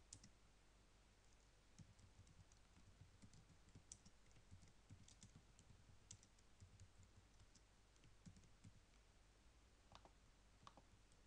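Faint, irregular keystrokes on a computer keyboard as a line of text is typed.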